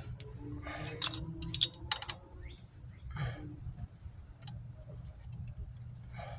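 Scattered metallic clicks and clinks of drum brake shoes and springs being handled and pried into place, the loudest a pair about a second in, over a steady low rumble.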